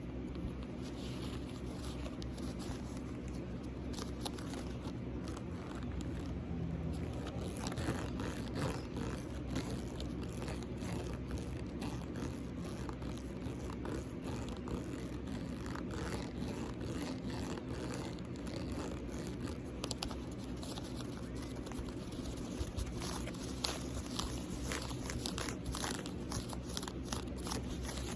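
Fingernails scratching and tapping on a small bear-shaped item: a dense, irregular run of quick clicks and scrapes over a steady low hum.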